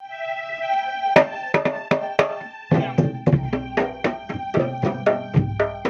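Pencak silat accompaniment music. A sustained melody opens alone, sharp drum strokes come in about a second in, and from just before halfway a fast, steady drum rhythm with deep jidor bass drum beats takes over under the melody.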